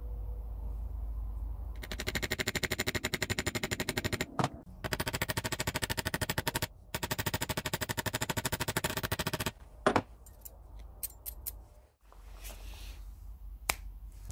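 Rapid, even metallic hammering on the steel tongs of an antique curling iron clamped in a vise, broken by two short pauses and stopping about nine and a half seconds in. A few single light metal clinks follow.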